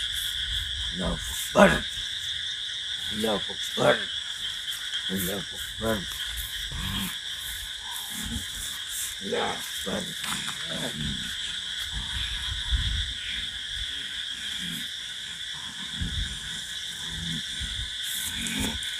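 Steady chorus of night crickets, with short vocal sounds from a person every second or two, some rising or falling in pitch.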